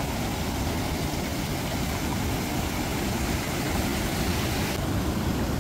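Steady rushing of shallow water flowing over a weir, with the hiss thinning slightly near the end.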